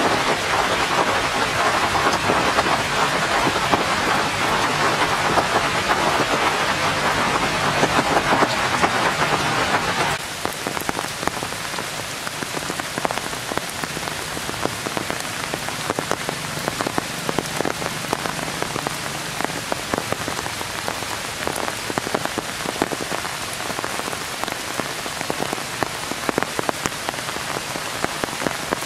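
Rain falling steadily on tree foliage, a dense hiss made of countless drop ticks. About ten seconds in it drops suddenly to a lighter, thinner rain, in which single drops stand out more clearly.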